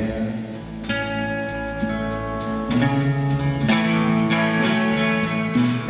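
Electric guitar played live: chords struck and left to ring, with new chords coming in about a second in, near the middle and again near the end.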